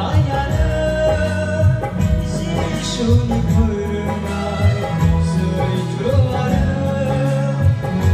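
Man singing a Bodo gospel song into a microphone, his wavering melody carried over amplified instrumental accompaniment with sustained bass notes and a steady beat.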